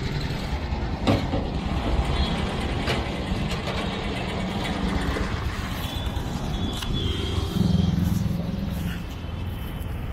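Roadside traffic: motor-vehicle engines running close by in a steady low rumble, which swells louder about eight seconds in.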